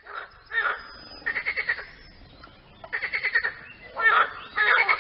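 Frogs croaking in short calls of rapid pulses, each about half a second long, repeating every second or so, with several calls overlapping.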